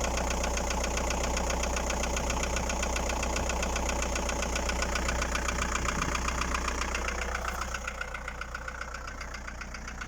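Volkswagen Passat B4's 1.9 turbodiesel four-cylinder (AAZ) engine idling with a fast, steady rhythmic knock, which the owner takes for piston knock. About seven and a half seconds in, the sound gets quieter and duller.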